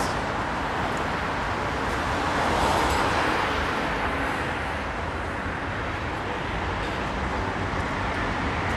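Steady city street traffic noise, a continuous hum of passing vehicles that swells slightly about three seconds in.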